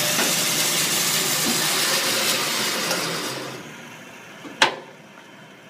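Band saw cutting a board: a loud, steady hiss of the blade through the wood that dies away about three seconds in as the cut ends, followed by a single sharp knock near the end.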